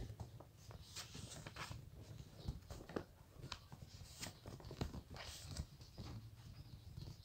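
Sheets of paper being folded and creased by hand: faint, irregular rustles and crinkles with soft clicks and taps scattered throughout.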